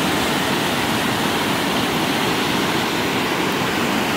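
Loud, steady rush of brown floodwater pouring and churning over a low dam.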